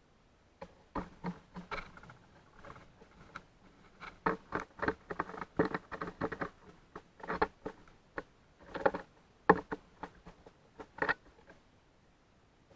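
Birds feeding at a seed feeder close to the microphone: irregular runs of quick taps, pecks and rustling seed, in bursts with short pauses.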